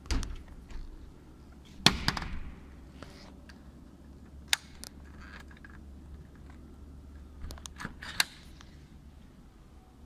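Several sharp knocks and clatters over a low steady hum, the loudest about two seconds in and again near the end.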